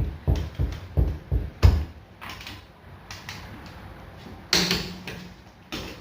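Hand tools on a wheel's lug nuts: a run of quick low knocks, about three a second, that stops near the two-second mark. About four and a half seconds in comes a louder metallic clank with a short ring.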